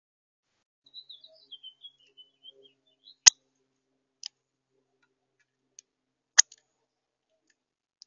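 A run of short, high bird chirps that fall a little in pitch, then sharp clicks and knocks at a seed feeder as a male northern cardinal feeds there; the loudest click comes about three seconds in, another a little past six.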